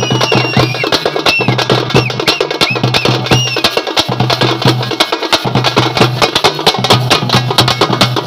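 Traditional Tamil funeral drum band playing a fast, dense rhythm of sharp stick strokes on hand-held drums over a pulsing low beat, with short high gliding notes laid over it.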